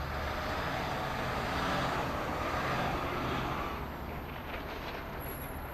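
Box truck driving past on the street: its engine and tyre noise swell over the first few seconds, then ease off as it pulls away.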